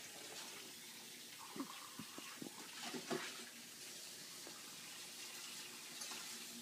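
Faint water running from a kitchen tap into a sink, a steady hiss, with a few soft knocks and clicks in the first half.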